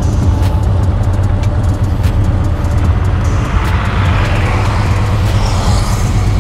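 Harley-Davidson Dyna Clubstyle's V-twin engine running steadily under way, with a rushing noise that swells about four seconds in.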